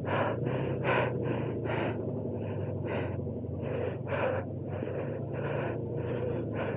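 A person breathing hard and fast close to the microphone, short puffs about two to three a second, over a steady low hum.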